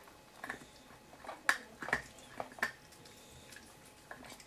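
Russian Toy terrier puppy gnawing a hard chew: irregular sharp clicks and short scrapes of teeth on the chew and of the chew knocking on the floor, most of them in the first few seconds, with a quieter pause before they pick up again near the end.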